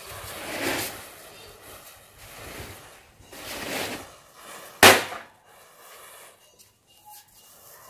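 Burning chain of matchsticks flaring up, with two bursts of hissing flame that swell and fade, then a single sharp firecracker bang about five seconds in, the loudest sound.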